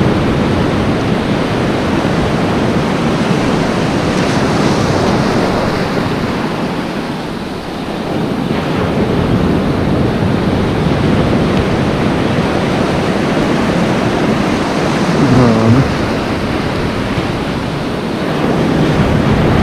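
Shallow surf washing and foaming over a reef flat, with wind buffeting the microphone. The wash eases briefly about a third of the way in, and a short wavering low tone sounds late on.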